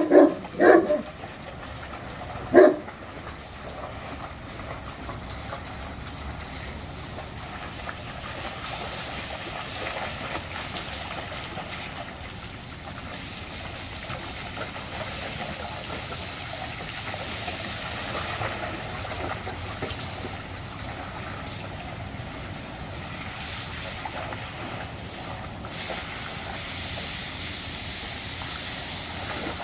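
A dog barks three times in the first few seconds. Then comes the steady hiss of a garden hose spraying onto a water-covered pool cover, with dogs splashing and wading through the water.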